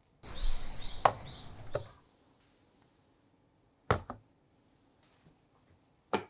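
Handling noise with sharp knocks. The first second and a half is a rustling clatter with two strikes in it. About four seconds in comes a quick double knock as a glass mixing bowl is set down on a digital kitchen scale, and a single knock follows near the end.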